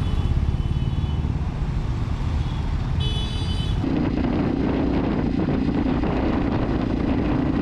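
Street traffic rumbling, with a short horn toot about three seconds in; then the sound changes to a motorcycle underway, its engine running steadily under road and wind noise.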